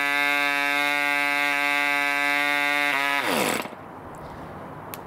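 3.5cc Mikro model diesel engine running steadily with a propeller on a test stand. About three seconds in, it is shut off by pinching the fuel line: the pitch falls steeply and it cuts out within half a second.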